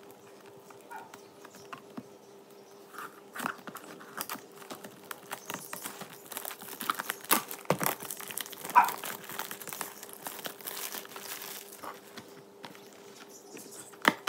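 Cellophane shrink wrap being cut with scissors and peeled off a cardboard trading-card box: crinkling and tearing plastic with small snips and clicks, busiest in the middle.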